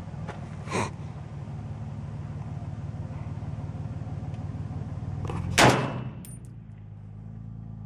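A single rifle shot from a 16-inch-barrel .308 AR-10-type carbine fitted with a Battle Comp muzzle brake, about five and a half seconds in, over a steady low engine hum.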